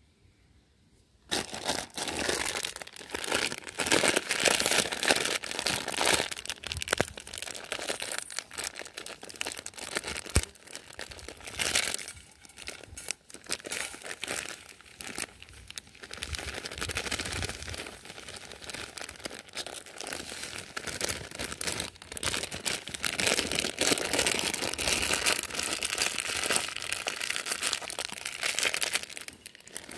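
Plastic packets of dry fishing groundbait crinkling and rustling as they are handled, torn open and poured into a metal bowl. It starts about a second in, after a brief quiet.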